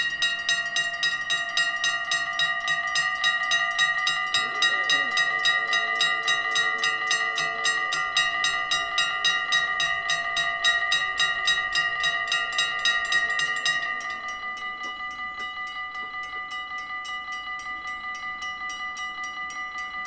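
Electric level-crossing bells ringing in rapid, even strokes, several a second, while the crossing is active and the barriers come down. About fourteen seconds in, the ringing drops to a noticeably quieter level and carries on, as Dutch crossing bells do once the barriers are closed.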